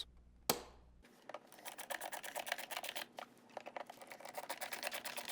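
Torx screwdriver driving the screws that hold the plastic door strike on a front-load washer door: a single click, then a rapid run of small ticks and scrapes as the screws are turned in.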